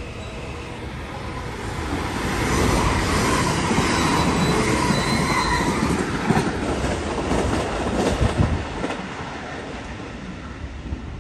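Electric limited-express train running through the station at speed: the rumble of wheels on rail swells about two seconds in, with a faint high wheel squeal, then sharp clacks over rail joints and points before it fades away.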